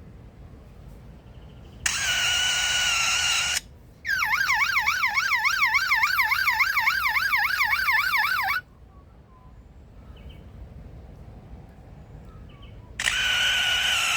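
Superb lyrebird mimicking a car alarm: a steady buzzing tone for under two seconds, then a fast warbling siren swinging up and down about four to five times a second for about four seconds, and another short buzz near the end. Each part starts and stops abruptly.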